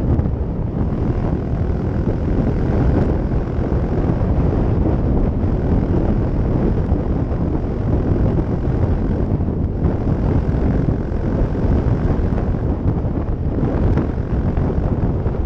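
Yamaha YS125's single-cylinder four-stroke engine running steadily at cruising speed through a LeoVince aftermarket exhaust, heard on board while riding, mixed with wind noise on the microphone.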